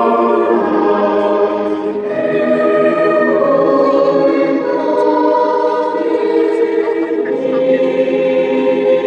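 Choir singing long held chords, moving to a new chord about two seconds in and again later.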